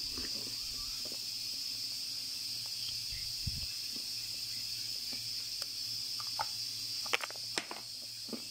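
Scattered crackles and a few sharp crunches of dry edible clay chunks, the loudest two close together near the end, over a steady high hiss.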